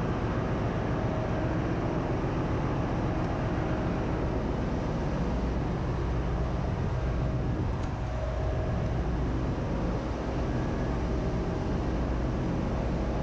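Steady engine-room machinery noise from a ship's running auxiliary plant: an even mechanical din with a constant low hum beneath it. The main engine is stopped; the diesel generators and auxiliary machinery are running.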